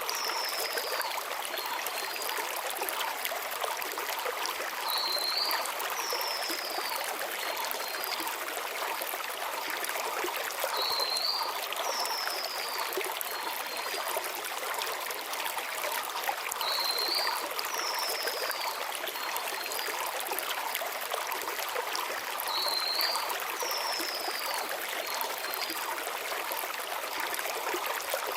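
Small mountain river rushing steadily over stones, with a small songbird repeating the same short phrase about every six seconds: a brief rising note, then a falling whistle, then a couple of faint short notes.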